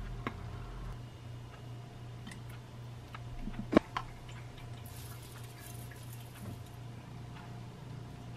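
Quiet kitchen handling over a steady low hum: a few faint ticks, then a sharp click of a utensil set down a little under four seconds in. About a second later comes a short rustle of the plastic bag of red pepper flakes.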